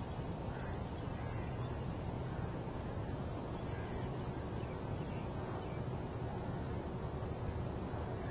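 Steady low outdoor background rumble, with a few faint bird calls now and then.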